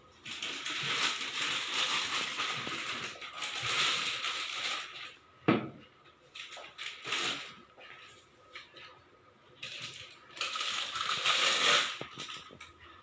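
Packaging rustling and crinkling in irregular stretches as a new mixer grinder is unpacked, with a sharp knock about halfway through.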